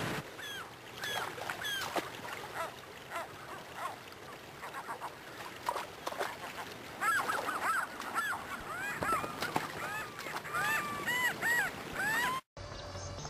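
Gulls calling over rushing river water. At first the short calls come one at a time; in the second half many calls overlap. The calls cut off abruptly near the end.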